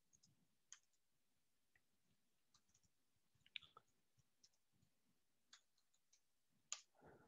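Faint, scattered keyboard key clicks from typing, against near silence.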